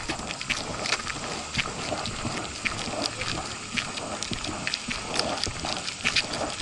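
Footsteps of hikers walking on a rocky, gravelly trail: a continuous run of irregular scuffs and sharp clicks of boots on stone.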